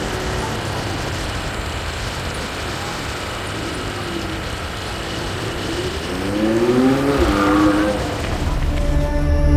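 A motor vehicle's engine passes over a steady rushing background, its pitch rising about six seconds in. Steady music tones come in near the end.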